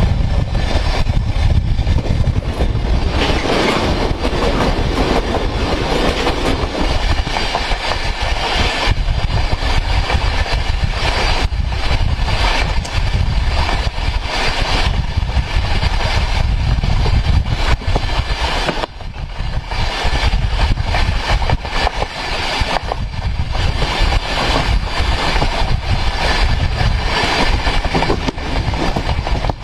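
Steel train wheel rolling on the rail at speed, heard from right beside the wheel: a loud, continuous rumble with irregular clacks.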